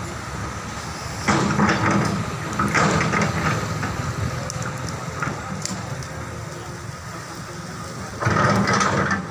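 Tracked hydraulic excavator's diesel engine running, surging louder three times (about a second in, around three seconds, and near the end) as the arm and bucket work.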